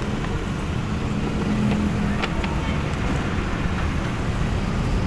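Steady low rumble of road traffic and a nearby vehicle engine, with a faint hum and a couple of light clicks about two seconds in.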